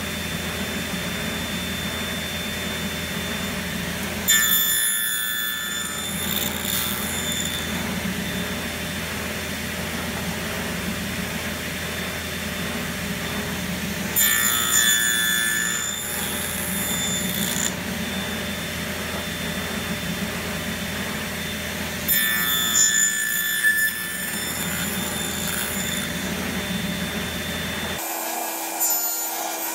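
Table saw running steadily, with its blade cutting through wood three times as the box joint sled carries the workpiece through, each cut lasting two to three seconds.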